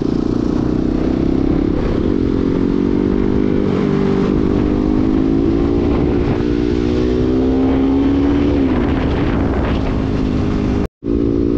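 Motorcycle engine running steadily at road speed, with wind noise on the microphone. The engine note drifts slowly up and then falls back about eight and a half seconds in, and the sound cuts out briefly near the end.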